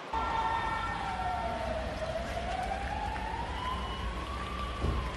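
An emergency-vehicle siren wailing slowly: its pitch falls, rises over a couple of seconds, then falls again, over a steady low rumble.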